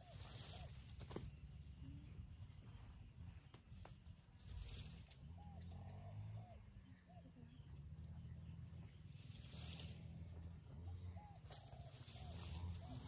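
Faint outdoor ambience: a steady low wind rumble on the microphone with soft rustling now and then, and small birds chirping faintly in the distance.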